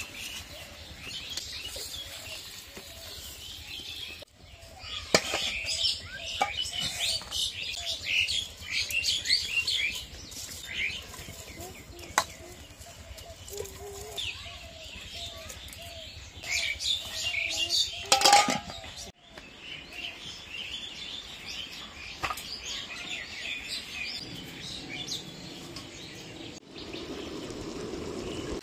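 Small birds chirping and twittering almost throughout, with a few sharp clanks of steel pots and bowls being handled. Near the end a steady low rushing sound comes in.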